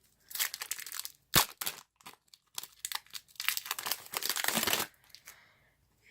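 Foil wrapper of a trading card pack crinkling and tearing as it is ripped open, in two stretches, with a sharp snap about a second and a half in.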